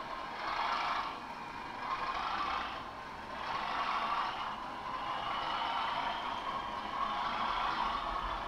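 Model Class 37 diesel locomotive hauling a long rake of goods wagons round a curve of track, its motor running and the wheels rolling on the rails; the sound rises and falls every second or so.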